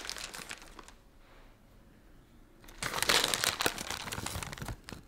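Plastic M&M's sweet packet crinkling as it is handled and shaken: a short spell at the start, then a longer, louder spell from about three seconds in.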